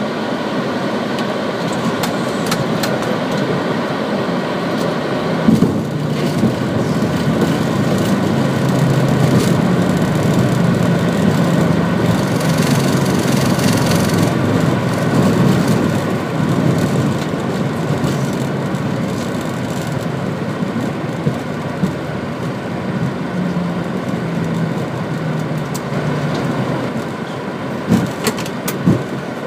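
Boeing 737-800 on the landing rollout, heard from the cockpit: a steady roar of engines, airflow and wheels on the runway, with a thump about five seconds in. The roar grows louder and hissier for several seconds around the middle, then eases as the jet slows and turns off the runway, with a few clicks near the end.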